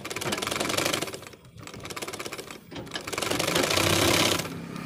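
Brother umbrella sewing machine running, its rotary hook spinning with a rapid, even clatter. It runs in three spells with brief stops about a second and a half and nearly three seconds in; the last spell is the loudest and stops shortly before the end.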